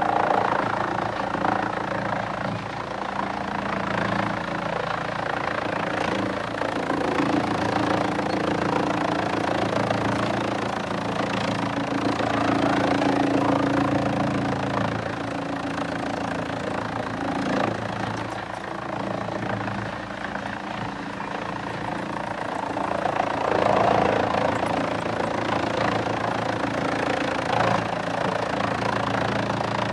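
Heavy machinery engine running steadily under load, with a low pitched hum and a rougher grinding layer that swells and eases every few seconds.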